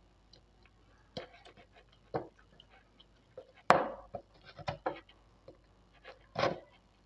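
Scattered clicks, taps and light scrapes of small LED bulb parts being handled and set down on a workbench, with one sharp click a little past halfway.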